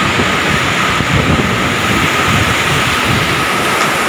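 Steady rush of a flooded river pouring over rocks below a waterfall, with wind buffeting the phone's microphone.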